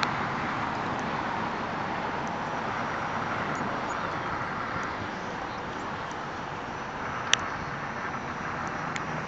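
Steady outdoor background noise, an even hiss, with one sharp click about seven seconds in.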